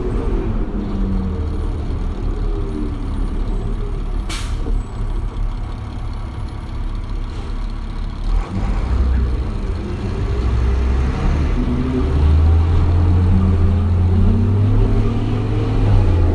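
2001 New Flyer D40LF bus's Detroit Diesel Series 40 diesel engine and Allison automatic transmission, with a low rumble throughout. The engine's pitch falls as the bus slows at first, and a brief hiss of air comes about four seconds in. From about ten seconds in the bus pulls away, the engine pitch rising in two climbs as it accelerates.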